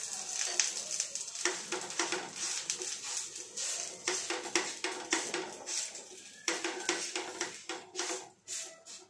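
Wheat-flour adai dough being patted and pressed flat by hand on a pan: an irregular run of soft taps and pats, with brief pauses.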